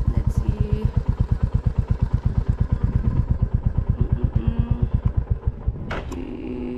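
Motorcycle engine idling with an even pulse of about a dozen beats a second, then switched off with a click near the end.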